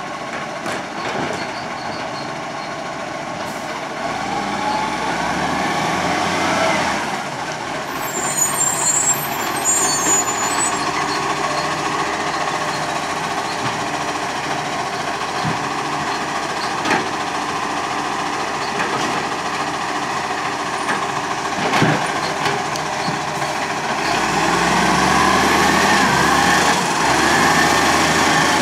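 Iveco Acco side-loader garbage truck's diesel engine running as the truck creeps along and pulls away, its revs rising and falling, with a brief high brake squeal about eight seconds in. A couple of sharp knocks or air-brake clicks come later.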